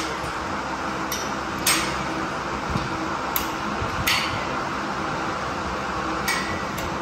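About five sharp metallic clinks at irregular intervals, the strongest about one and a half and four seconds in, over a steady hiss.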